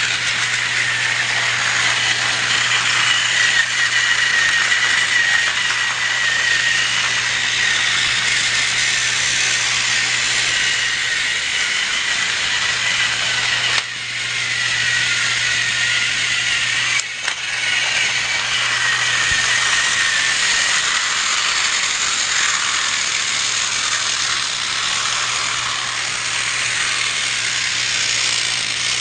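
Battery-powered TrackMaster toy train running: its small motor and plastic gears whirring and rattling steadily with a high whine that wavers. The sound drops out briefly twice about halfway through.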